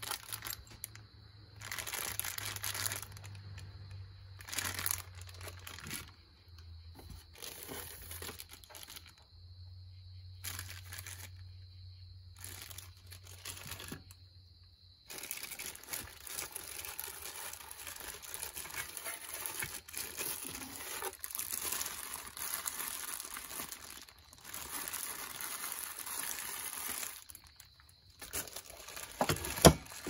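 Plastic bags of ceiling-fan parts crinkling and rustling as they are handled and lifted out of a foam packing tray, in bursts with short pauses. A sharp knock near the end.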